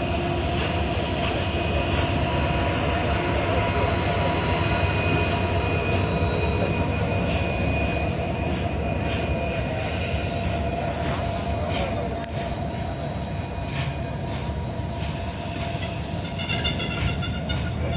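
Diesel-hauled freight train rolling past close by: a steady rumble of wagon wheels on the rails with scattered clicks as the wheels cross joints. Thin high wheel squeal, strongest near the end.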